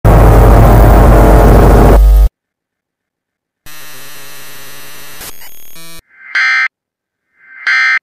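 Loud distorted TV static for about two seconds that cuts off suddenly. After a short silence comes a quieter steady electronic buzz for about two seconds, then two short, loud electronic data bursts near the end, like an Emergency Alert System header.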